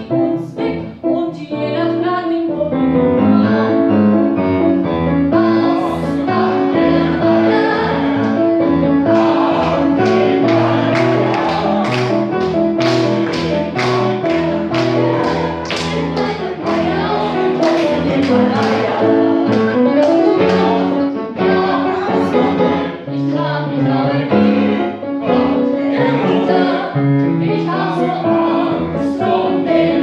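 A woman singing a German song with grand piano accompaniment, the piano striking chords in a steady beat.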